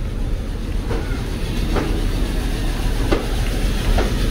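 Passenger train rolling slowly with a steady low rumble and sharp wheel clacks over the rail joints, four of them about a second apart.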